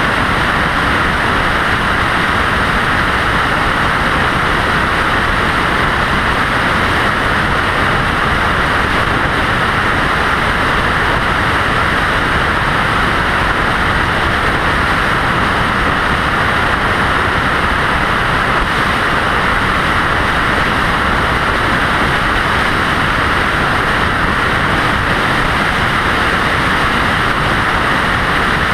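Steady road and wind noise from a vehicle driving at highway speed, an even rushing hiss that does not change.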